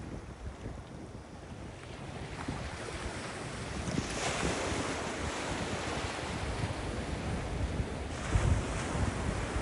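Ocean surf: waves breaking and washing in, with wind buffeting the microphone. The wash of the surf swells about four seconds in, and low wind rumbles on the microphone come near the end.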